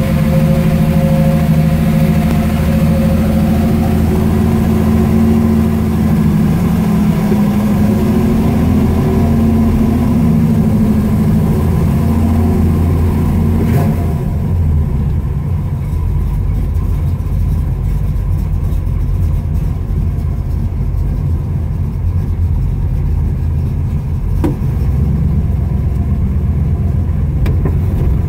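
1968 Chevrolet Camaro's engine running steadily at low revs, just after start-up, heard from inside the car. About 14 seconds in, the sound turns deeper and duller while the car drives slowly down the street.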